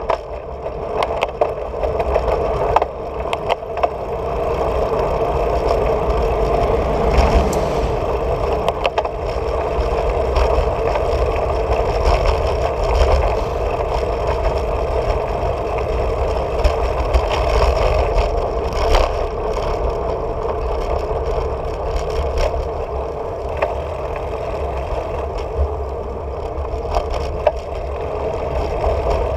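Steady wind rumble on the microphone of a bicycle-mounted camera while riding, with road vibration coming through the mount as scattered rattling clicks.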